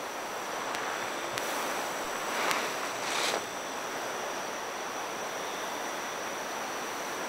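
Steady rushing noise that swells briefly twice around the middle, with a faint, steady high-pitched tone above it and a few faint ticks.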